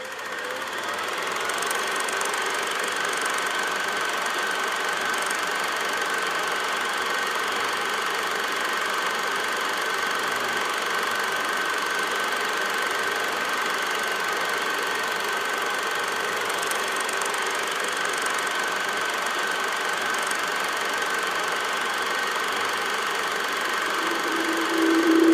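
A steady whirring noise drone with a faint high hum running through it, fading in over the first couple of seconds and then holding even. A low musical note comes in at the very end.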